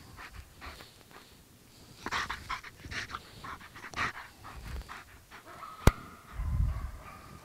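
Black German Shepherd panting hard in quick breathy bursts while working close at heel. About three-quarters of the way through comes a single sharp click, the loudest sound, followed by a short low rumble.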